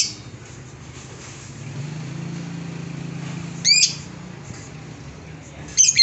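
Lovebird giving short, shrill chirps, one about four seconds in and another at the very end.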